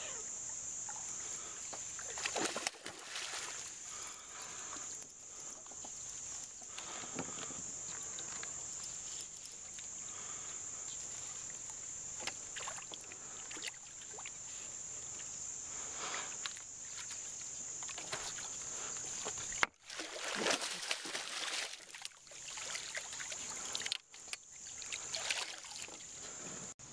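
Steady high-pitched chorus of insects, with irregular light splashes and knocks from a topwater frog lure being worked on the water and from the small boat.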